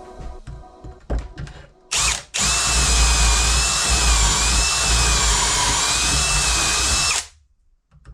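Power drill running in short bursts: a brief trigger pull about two seconds in, then a steady run of about five seconds with a slightly wavering whine, stopping, and starting again at the very end. A few light knocks come before it in the first second.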